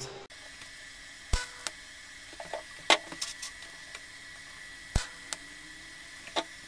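TIG welding a small stainless-steel screw model: about six short, sharp cracks as the arc is struck for tack welds, the loudest about three seconds in, over a steady high-pitched hum.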